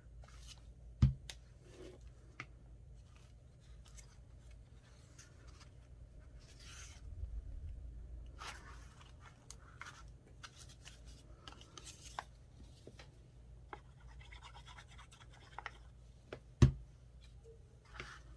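Paper being handled and rubbed on a tabletop, with scattered small clicks and scratching. Two sharp thumps stand out, about a second in and near the end, as objects are set down on the table.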